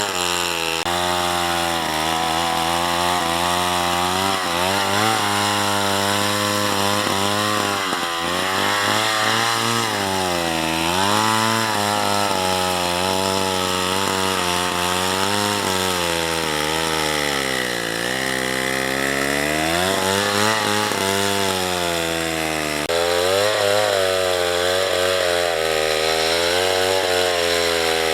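Two-stroke chainsaw running at high revs and cutting into wood, its pitch sagging and recovering again and again as the chain bogs under load, with the deepest dip about two-thirds of the way through.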